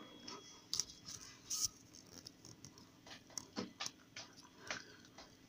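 Faint scattered clicks and small taps, a few short ones spread irregularly, over quiet room tone.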